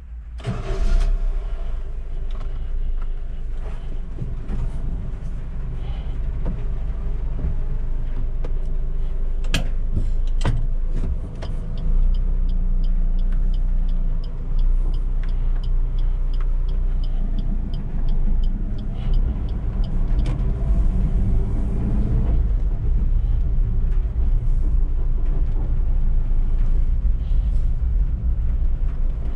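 Suzuki EECO's 1.2-litre four-cylinder engine running as the van drives, under a steady low rumble of road noise. A couple of sharp clicks come about a third of the way in, followed by a fast, regular light ticking that lasts several seconds.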